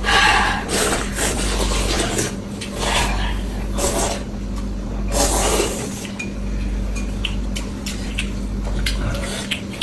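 Someone eating a bowl of saozi noodles: noisy slurps and chewing, with utensils clicking against the bowl.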